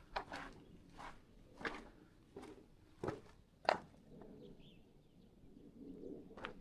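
Footsteps of a person walking at an even pace, about one step every 0.7 seconds. The steps stop for a couple of seconds after the middle, and one more step comes near the end.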